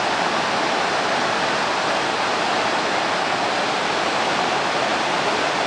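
Waterfall pouring down in a steady roar: a dense, even rush of falling water with no let-up.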